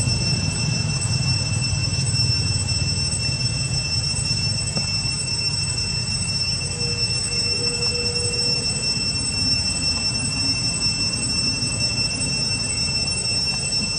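A steady high-pitched whine, one unchanging tone with overtones, over a low background rumble, with a brief lower tone about seven seconds in.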